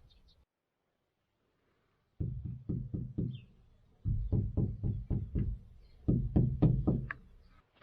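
Three bursts of rapid knocking, about five or six knocks a second, separated by short pauses.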